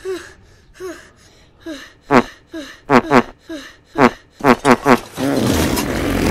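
Comedic fart sound effects: a quick run of about a dozen short, squeaky toots with bending pitch, then about five seconds in a long, louder, raspy fart.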